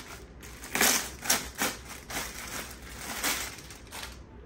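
Packaged fabric being handled, rustling and crinkling in a string of short bursts, the loudest about a second in and again just after three seconds.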